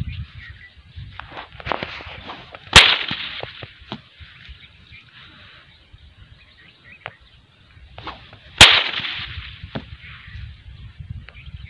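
Twisted rope swung by hand and cracked like a whip: two loud, sharp cracks about six seconds apart, with a few faint snaps between.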